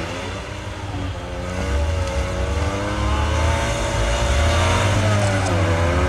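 Racing cars' engines revving hard as they lap a dirt circuit. The engine pitch rises and falls with gear changes, and the sound grows louder over the first few seconds. Near the end the engine drops back briefly as the driver lifts off, then picks up again.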